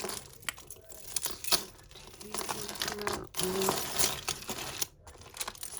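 Plastic bag crinkling and costume jewellery clicking and rattling as necklaces, chains and beads are handled and pulled apart.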